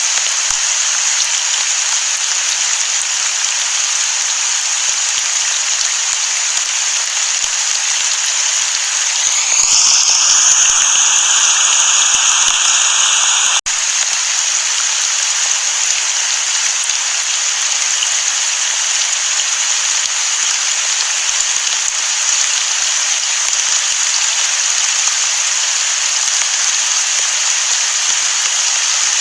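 Steady rain, an even hiss with no thunder. About ten seconds in the rain swells louder for a few seconds, then cuts off abruptly for an instant before the steady hiss resumes.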